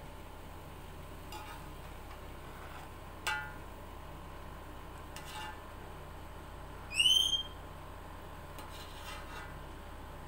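Metal serving spoon scooping cooked rice out of an aluminium pot, with faint scraping and one sharp, ringing clink of metal on metal a few seconds in. About seven seconds in, a short high rising chirp with a whistle-like tone is the loudest sound.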